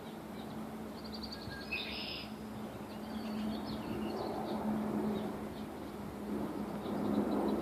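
Birds chirping in quick series of short high notes, about a second in and again around three to four seconds in, over a steady low hum and outdoor background noise.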